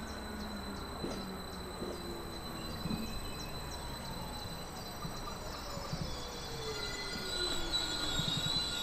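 DB Intercity 2 double-deck electric multiple unit (Stadler KISS) braking into a station: the whine of its electric traction drive falls steadily in pitch as it slows, and a high squeal builds near the end as it comes to a stop.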